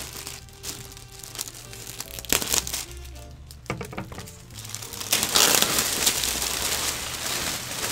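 Clear plastic wrapping crinkling and rustling as it is torn and pulled off by hand, with a few sharp crackles and a louder, continuous stretch of crinkling from about five seconds in.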